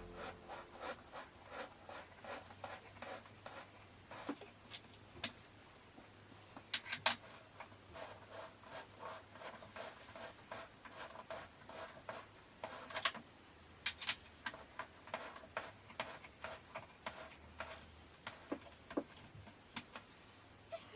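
Faint rubbing, scraping and light clicking from handling and fitting the parts of an IKEA KALLAX shelf, with a few sharper taps scattered through.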